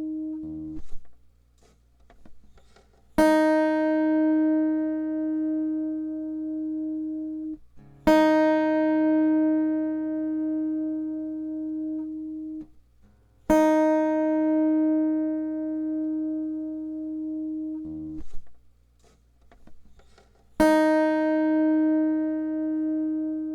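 Acoustic guitar's open first string, tuned down a half step to high E-flat, plucked four times and left to ring for a few seconds each time before being muted: the reference note for Eb tuning.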